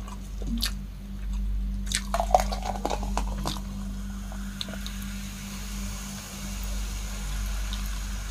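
A run of sharp clicks and crackles, then from about four seconds in a steady fizzing hiss as Sprite soda is poured from its plastic bottle into a glass mug.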